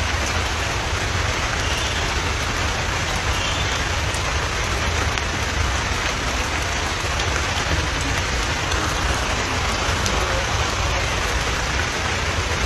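Steady rain falling on stone and vegetation: an even hiss with scattered drop ticks over a constant low rumble.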